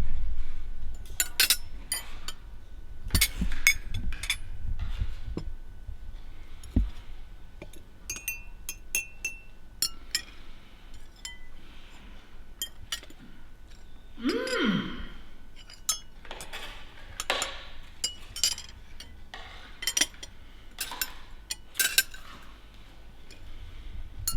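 Cutlery clinking against dishes in a string of sharp, separate clinks while someone eats, with one short rising-and-falling vocal sound about halfway through.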